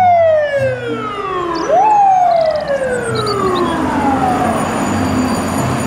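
Fire ladder truck's siren wailing: a tone that falls slowly, sweeps sharply back up about two seconds in, then slides down again, over a steady low vehicle rumble.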